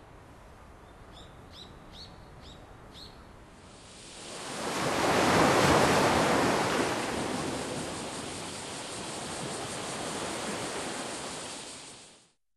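Ocean surf: a wave rushes in, swelling about four seconds in, then washes back and fades away near the end. A few short high chirps come before it.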